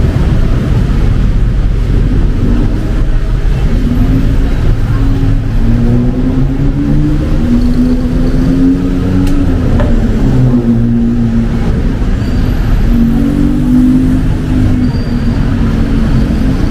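Rainy city street: a steady hiss of rain and road noise, with a vehicle engine whose pitch wavers up and down through most of the stretch.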